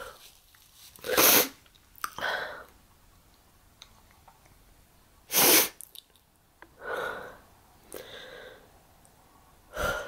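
A woman sneezing hard twice, about a second in and again about halfway through, with softer breathy sounds between the sneezes and another short burst near the end.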